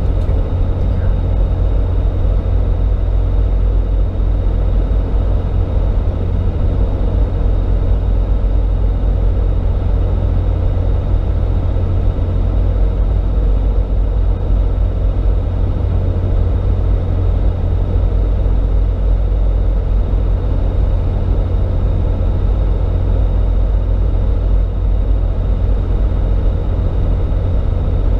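Steady low drone of road, tyre and engine noise inside the cab of a 2012 RAM 2500 pickup driving on the road.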